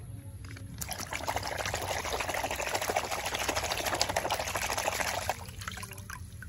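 Muddy water in a basin sloshing and splashing as a hand scrubs a toy car under the surface, starting about a second in and dying down near the end.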